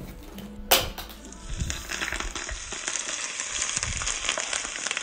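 Very hot annatto-seed oil sizzling and crackling as it is poured over steamed fish and its vegetable garnish. The crackling starts about a second and a half in, just after a short knock.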